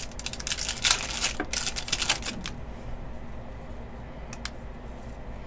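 Trading cards being handled and flipped through: a quick run of rustling clicks in the first two seconds or so, then a few single clicks.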